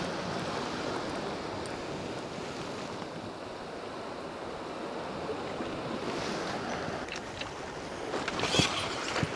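Sea washing against a rocky shore, a steady rushing. Near the end come a few short clicks and splashes.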